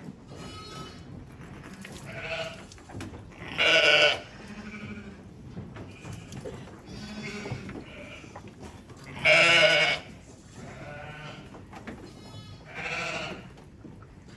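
Icelandic sheep bleating during lambing: a few separate calls, the two loudest about four and nine and a half seconds in, with softer bleats between them.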